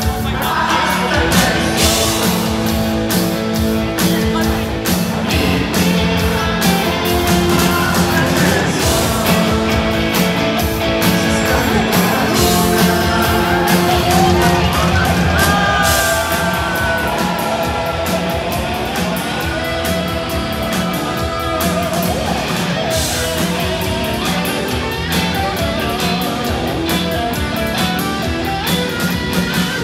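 Live rock band playing loudly: drum kit, electric guitars, bass and keyboards, with singing over them, heard from the audience.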